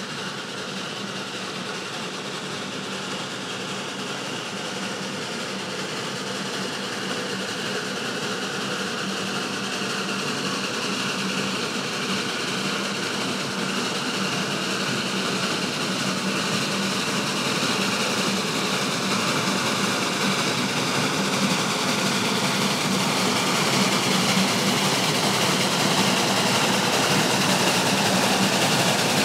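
Narrow-gauge geared steam locomotive running toward the listener, its sound growing steadily louder.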